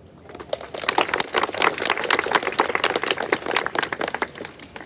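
A crowd applauding, with dense irregular clapping that builds up just after the start and thins out near the end.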